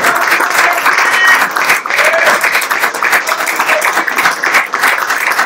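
A small group of people clapping steadily, with a few brief voices calling out over the applause.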